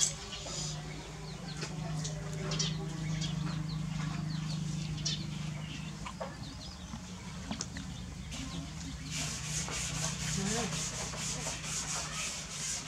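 Hands rubbing and scratching a baby macaque's fur and cloth dress while grooming it: soft scrapes and ticks, turning about eight seconds in into a run of quick, even brushing strokes. A low steady hum sits underneath.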